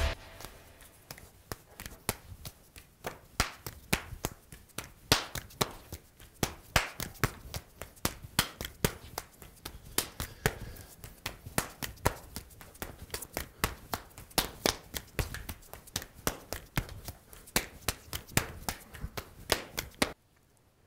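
Quick, irregular slaps and taps of hands and forearms striking and parrying in a two-person knife flow drill, several a second. The sounds stop near the end.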